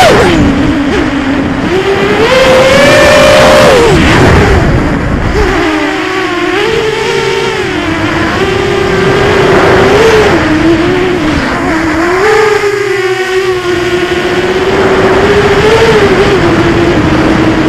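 Eachine Tyro 129 FPV quadcopter's brushless motors and propellers whining as it flies, the pitch constantly rising and falling with the throttle. It drops sharply at the start, climbs about two seconds in and falls again about four seconds in. A heavy rumble underlies the first few seconds.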